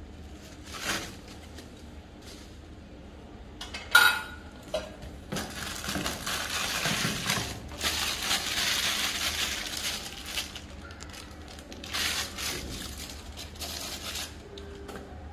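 Parts of a bicycle engine kit being handled: one sharp metal clank with a brief ring about four seconds in, then a few seconds of crinkling packaging, with scattered knocks and clinks.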